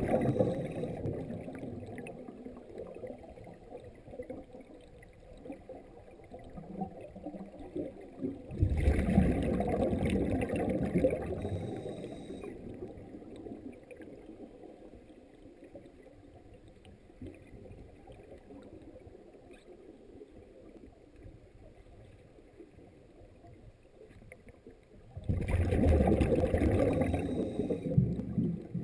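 A scuba diver's exhaled bubbles gurgling and rumbling past an underwater camera housing, in three bursts of a few seconds each: at the start, about nine seconds in, and about twenty-five seconds in. Each burst fades away into a quiet stretch between breaths.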